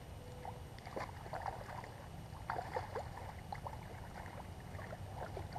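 Water splashing and sloshing as a carp is released by hand in the shallows: a run of small, irregular splashes and drips, loudest about halfway through, over a low steady rumble.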